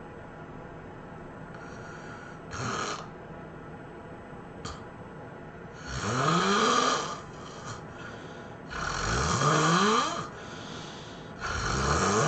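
A person snoring loudly in deep sleep. There is a shorter, softer snore about three seconds in, then three long snores about three seconds apart, each rising in pitch as it goes.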